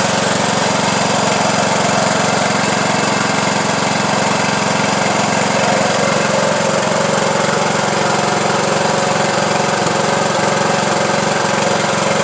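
Craftsman YT3000 riding lawn tractor's engine running steadily at a constant pitch while the tractor is driven around.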